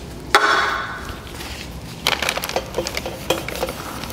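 A short burst of solvent prep spray hissing onto the engine, starting suddenly and fading over about a second. It is followed by irregular scuffing and crinkling as the surface is wiped down with a rag.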